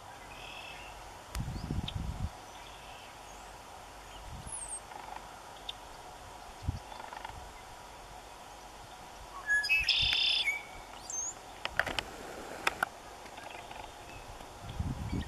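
Small birds chirping here and there, with one louder, brief bird call about ten seconds in. A short low rumble comes about two seconds in.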